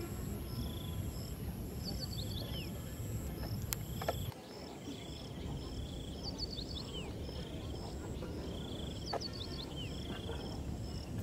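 Rural outdoor ambience: insects chirping in short, evenly repeated pulses, with birds calling in quick clusters of falling notes a few times, over a low steady rumble.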